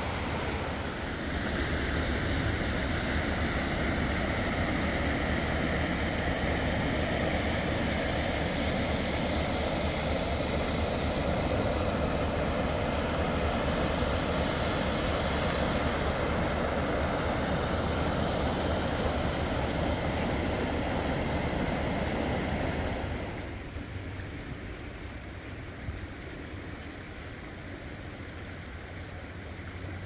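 The Arkansas River rushing over a rocky riffle and around boulders: a steady, even rush of shallow fast water. About three-quarters of the way through it suddenly becomes quieter and softer.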